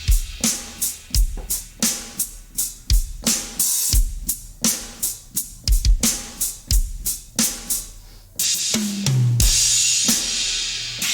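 Sampled drum kit played as a steady groove of kick, snare and cymbal hits. Near the end, a crash cymbal rings out over two tom hits, high then low.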